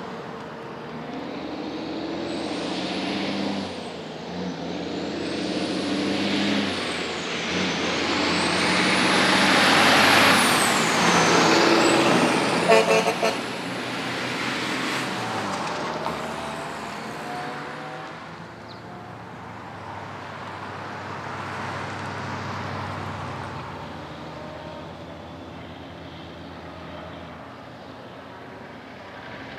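An old diesel semi-trailer truck pulls away and climbs through several gears: the engine note rises and falls with each shift, and a high whistle climbs with each gear and drops at each change. It is loudest as it passes, about ten seconds in, followed shortly by a quick run of short sharp blips. Quieter engine and road noise from following vehicles fills the rest.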